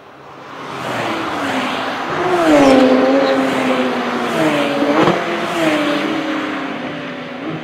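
Several sports cars on a race track accelerating hard toward and past the listener, the engine note climbing and dropping back at each upshift, loudest about three and five seconds in, then fading as they go by.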